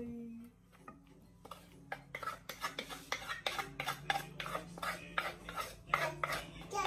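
A utensil scraping and knocking against the inside of a carved wooden mortar as pounded papaya salad is scraped out onto a plate: quick repeated scrapes, about four a second, starting a second or so in.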